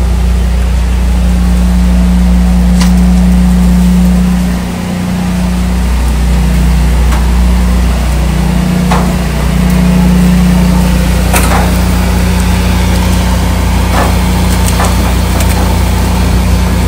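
Engine running steadily, a loud low hum with a brief dip about four and a half seconds in. Scattered light clicks and knocks sound over it.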